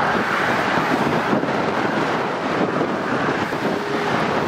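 Storm wind blowing across the microphone, a steady loud rushing noise without breaks.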